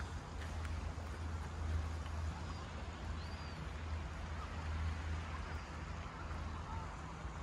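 Wind buffeting the phone's microphone: a steady low rumble under an even hiss, with a few faint high chirps about three seconds in.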